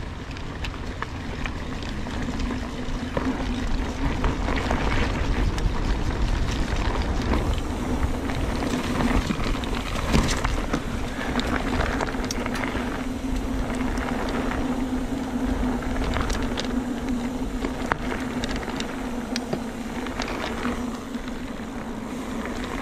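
Short-travel mountain bike ridden down a dirt trail: tyre and trail noise with scattered rattles and knocks from the bike, and wind on the microphone. A steady hum runs through most of it.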